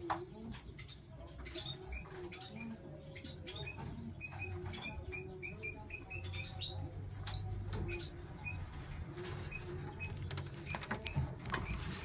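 Faint, high, short squeaking peeps in quick runs of several a second from four-day-old dove squabs in the nest, over a low steady hum.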